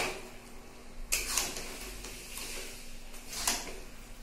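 A steel spoon scraping and knocking against a metal kadai while stirring chicken pieces in masala, three strokes over a faint hiss.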